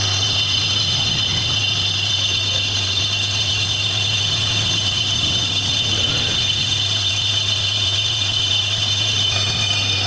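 Lathe running steadily while turning a brake disc: a constant hum with steady high-pitched tones over it.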